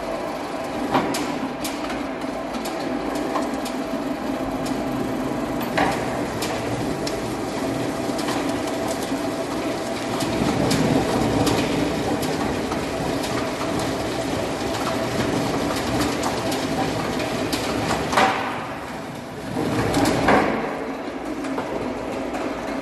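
SL-370 log debarker running under its electric motor, a steady mechanical hum and rumble as a log is fed through and its bark stripped. Sharp knocks come a few times, and the rumble grows louder about ten seconds in.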